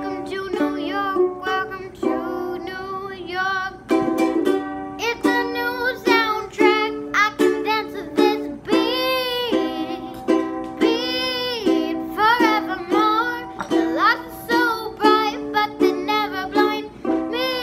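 A girl singing to her own strummed ukulele, the sung melody carried in long wavering held notes over the chords.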